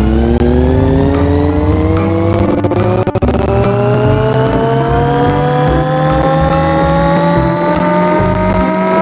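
A motor speeding up, its whine rising steadily in pitch throughout, over a steady low hum.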